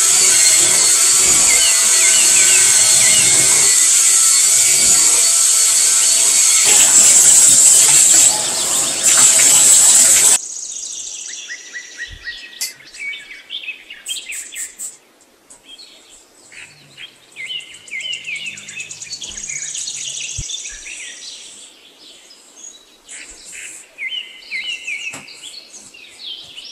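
Cordless electric spin scrubber running, its brush whirring against the bathtub surface. It cuts off abruptly about ten seconds in, leaving birds chirping repeatedly.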